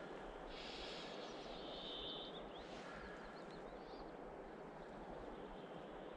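Small songbirds chirping and trilling a few times over a steady outdoor background hiss.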